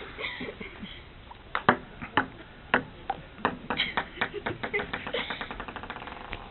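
Table tennis ball clicking sharply off paddles and the table in a few hits, then bouncing on the table faster and faster in a quickening run of ticks as it settles, near the end.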